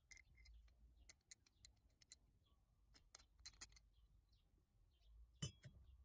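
Faint metallic clicks and clinks as the parts of an antique brass Turkish coffee grinder, its steel shaft and burr housing, are handled and fitted together, with one louder knock about five and a half seconds in.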